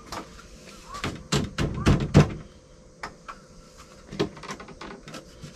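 Wooden shelf boards and frame pieces knocking together as they are handled and fitted: a quick run of hollow knocks about one and a half to two seconds in, the last the loudest, then a few lighter taps.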